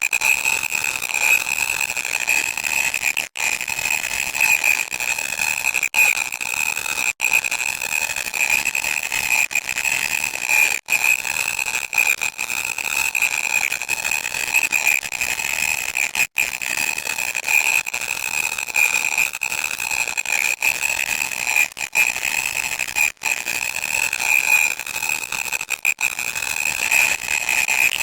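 Loud, harsh electronic static: a continuous hiss with a piercing high-pitched whine through it, cut by brief dropouts every few seconds.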